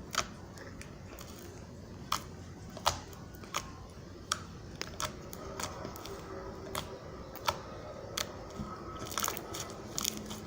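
Homemade slime being squeezed and pressed in the hands for the click test: a series of sharp, irregular clicks and pops, about one a second, coming closer together near the end.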